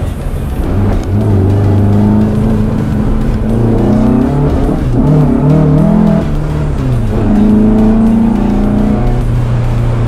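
VW Beetle's 2.7-litre Type 4 air-cooled flat-four engine and exhaust heard from inside the cabin while driving; the engine note holds steady, wavers up and down around the middle, then drops.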